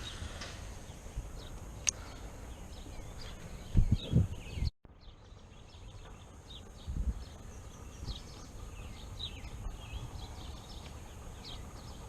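Outdoor ambience with small birds chirping over and over, a faint steady high whine, and a few low thumps. The sound drops out completely for a moment just before the middle.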